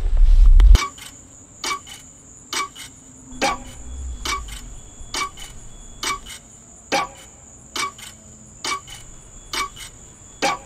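A deep low boom, then a clock-like ticking sound effect: sharp ringing ticks, evenly spaced a little more than once a second, over a steady high whine.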